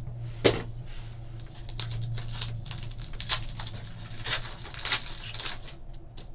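Foil trading-card pack wrapper crinkling and tearing as it is ripped open by hand, in irregular crackles and sharp snaps, over a low steady hum.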